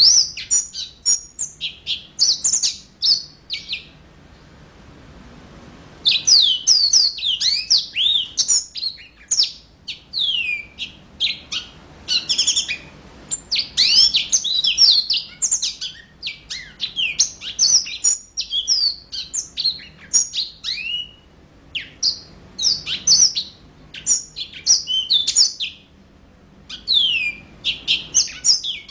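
Yellow-fronted canary (Mozambique canary) in full song: fast, bright phrases of quick rising and falling notes, with a pause of about two seconds some four seconds in and a shorter one near the end.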